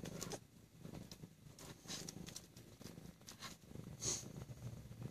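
Domestic cat purring close up, a low hum in repeating pulses, with a few short soft clicks or rustles, the loudest about four seconds in.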